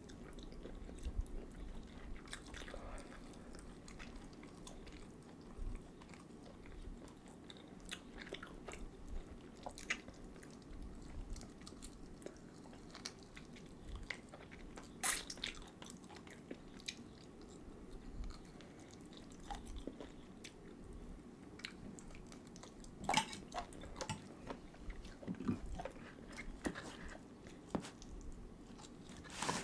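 People chewing and biting food, with scattered small clicks and mouth smacks and the odd louder crunch or click about 15 and 23 seconds in, over a low steady room hum.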